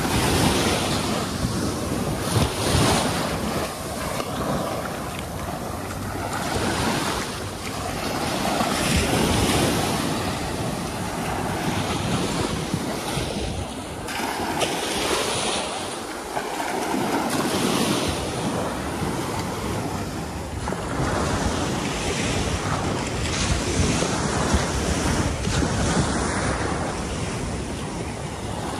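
Ocean surf washing onto a beach in repeated swells a few seconds apart, with wind rumbling on the microphone.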